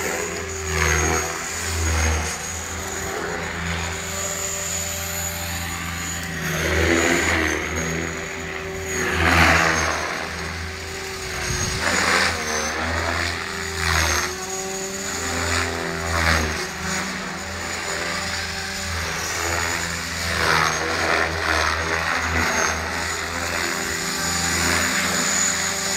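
Align T-Rex 500 electric RC helicopter in flight: a high steady motor whine over the rotor blades' noise, swelling and easing again every couple of seconds as it manoeuvres.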